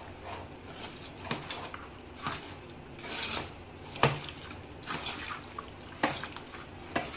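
A hand squishing raw chicken pieces through a thick, wet marinade of cornflour, egg and chilli powder in an aluminium pot. A few sharp knocks against the pot's metal come through, the loudest about four seconds in.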